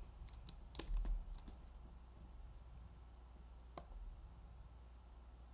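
Several computer keyboard and mouse clicks in the first second and a half, then one more click near four seconds in, over faint room hum.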